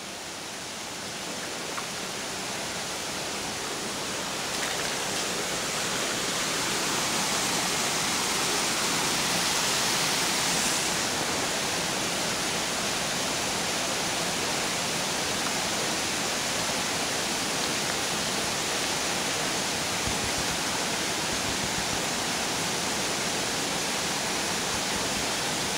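Rocky stream water rushing over stones: a steady noise that grows louder over the first several seconds, then holds even.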